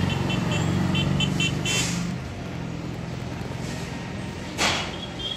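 A motor vehicle engine running steadily, louder for the first two seconds. Over it comes a run of short high beeps at about four a second, then a brief sharp burst of noise about four and a half seconds in.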